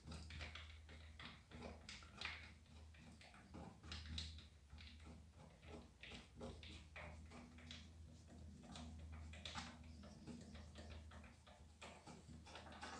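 Faint irregular clicks and light metal scraping as the overflow valve fitting is screwed by hand into the brass pump head of a Kärcher HD 5/15 C pressure washer, over a low steady hum.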